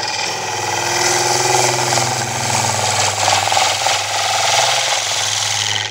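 Small Termite hollowing tool cutting end grain on a wood lathe, taking a finishing pass along the inside wall. A steady cutting noise runs over the steady hum of the lathe.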